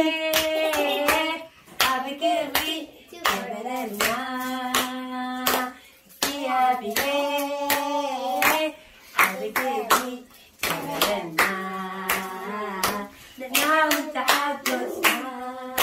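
A young girl singing a song in phrases of held notes, with hands clapping along in a steady beat.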